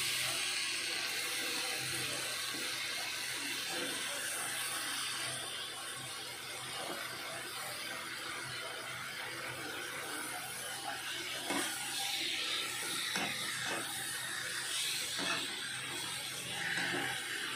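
Cut vegetables sizzling on hot fried masala in a pan, a steady hiss that eases a little after a few seconds. From about eleven seconds in, a spatula scrapes and knocks against the pan as the vegetables are stirred.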